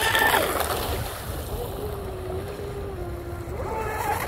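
Electric motor and propeller of an Oxidean Oxi-digger 34-inch wooden RC outrigger boat, running at speed across a pond. Its high whine drops sharply in pitch about half a second in, runs lower and steady, then climbs again near the end.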